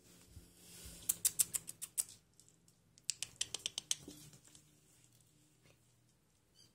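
Kitten paws pattering on a hard floor: two quick runs of light, sharp taps, each about a second long.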